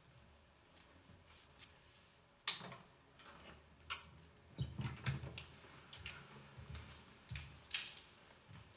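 A person moving about in a darkened room: irregular clicks and knocks, sharpest about two and a half seconds in and near the end, with a cluster of soft thumps in the middle.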